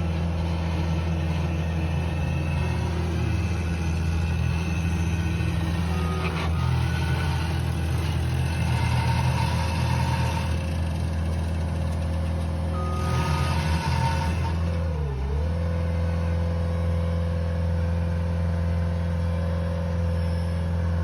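Engine of the machine driving a 9-inch rock auger, running steadily under load while it bores a post hole through rock. Its pitch dips and recovers once, about fifteen seconds in.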